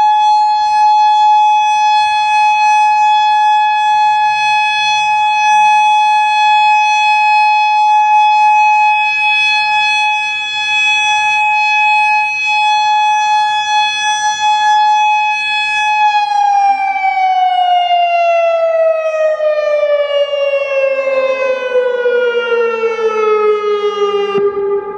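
Federal Modulator 6048 electromechanical outdoor warning siren sounding a loud steady tone, the Alert signal. About two-thirds of the way through, its pitch starts a long, even fall to about half its starting pitch.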